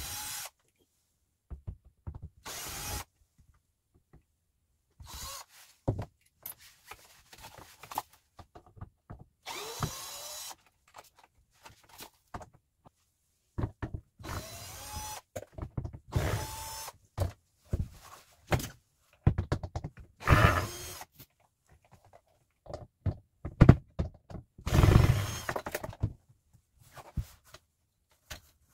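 Power drill run in many short bursts, each whirring up in pitch, with wooden knocks and thunks between them.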